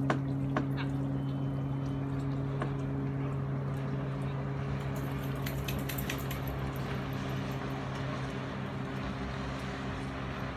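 Lake water lapping around a dock under a steady low hum, with a few light clicks near the start and a cluster of ticks midway.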